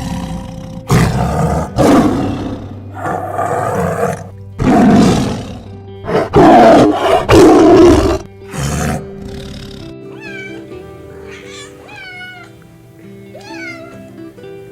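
Loud, rough animal calls, about eight in a row, over soft background music; in the last few seconds they give way to a few short, high chirps that glide down.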